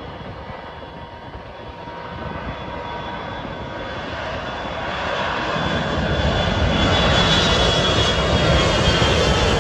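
A twin-engine jet airliner's engines at takeoff power during the takeoff roll, growing steadily louder as the aircraft draws nearer. A high, steady fan whine sits over the rushing engine noise, and the low rumble fills in during the second half.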